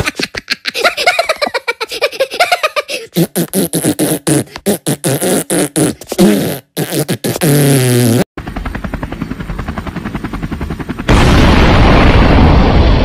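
Cartoon Minion voice chattering and laughing in short choppy bursts of gibberish. About eight seconds in, it gives way to a steady crackling rumble. Near the end a loud cartoon explosion sound effect bursts in.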